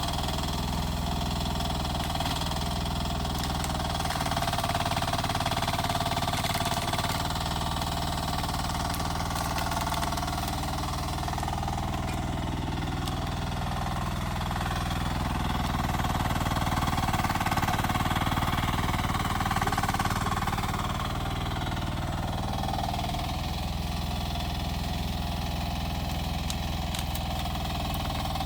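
Rippa R10 mini excavator's engine running steadily, swelling slightly in level a couple of times as the machine works.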